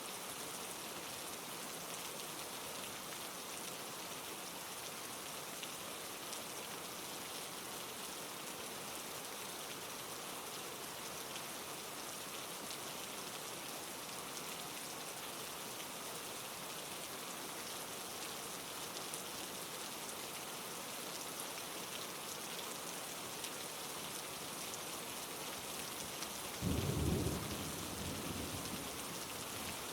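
Steady rain falling, with a sudden low rumble of thunder near the end that fades away over a couple of seconds.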